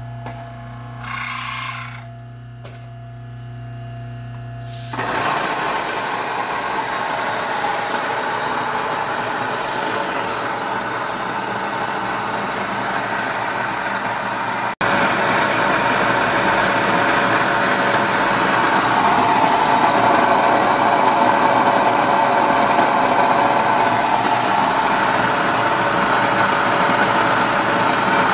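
Electric grain mill grinding wheat berries into flour. The motor hums alone at first. About five seconds in a loud, steady grinding noise takes over as the grain goes through, and it runs on with a momentary break about fifteen seconds in.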